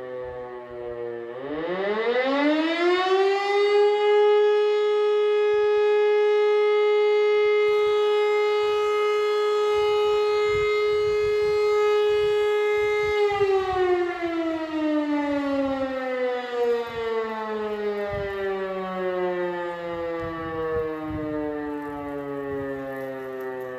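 E57 electro-mechanical warning siren sounding a test alarm. It rises from a low, fading tone to a steady howl about a second in, holds for roughly nine seconds, then winds slowly down in pitch as the rotor coasts after switch-off.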